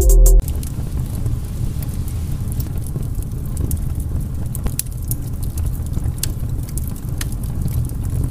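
A steady low rumble with scattered sharp crackles, a fire sound effect for the burning intro title, after a beat of music that cuts off about half a second in.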